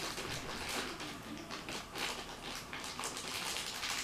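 Hands rummaging through packaging and small plastic toy figures: an irregular run of soft rustles and small clicks.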